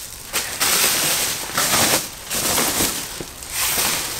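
Plastic packing bag crinkling and rustling in several bursts as a long soundbar is slid out of it.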